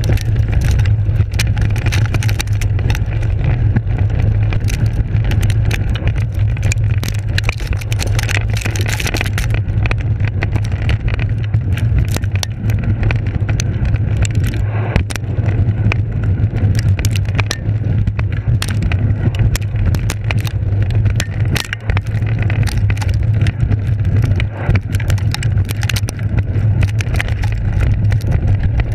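Mountainboard's pneumatic tyres rolling fast over grass and dirt, heard from a camera mounted on the deck: a loud continuous rumble with frequent knocks and rattles from the board bouncing over the rough ground.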